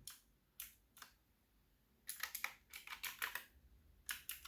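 Keys of an HP GK400Y mechanical keyboard with clicky blue switches being pressed: a few single keystrokes, then a quick run of clicking keystrokes from about two seconds in, and two more near the end.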